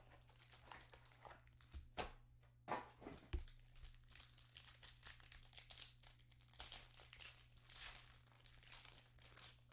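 Clear plastic wrapper on a stack of trading cards crinkling and tearing faintly as it is pulled open by hand, with a few sharp snaps in the first half.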